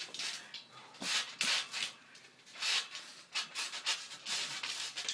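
Irregular scuffing and rustling as two wrestlers grapple on a trampoline: bare feet sliding on the mat and clothing rubbing, in short bursts about once a second.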